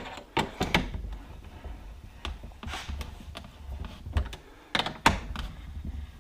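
Irregular clicks and light knocks as Tusk spring compressors are turned down on a shock spring, one side at a time, with the loudest knock about five seconds in.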